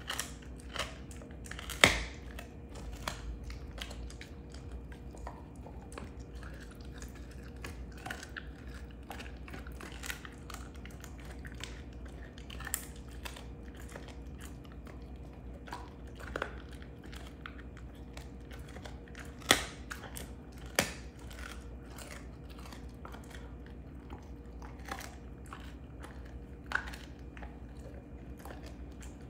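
Belgian Malinois chewing and crunching a beef rib bone: irregular cracks and crunches of bone between the teeth, with the sharpest cracks about two seconds in and twice around twenty seconds in.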